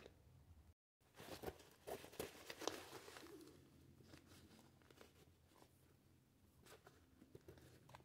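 Faint rustling and small clicks of hands handling nylon paracord and backpack fabric at a zipper slider. The sounds are busiest about one to three seconds in, then thin to scattered light ticks.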